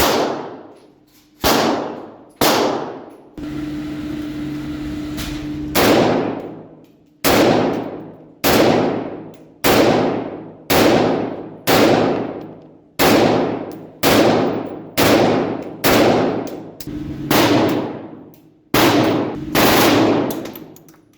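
Gunshots at a shooting range, fired singly at a steady pace of about one a second, some sixteen in all, each followed by a long ringing tail. A steady hum sounds in a gap between shots.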